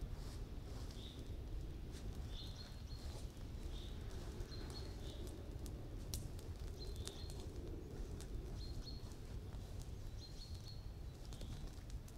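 Bonfire of branches burning, with scattered sharp crackles (one louder snap about six seconds in) over a low steady rumble. A bird repeats a short high chirp roughly once a second.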